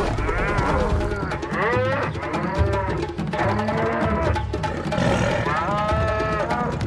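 A herd of African buffalo calling, several drawn-out calls overlapping that rise and fall in pitch. Background music with a low drum beat runs underneath.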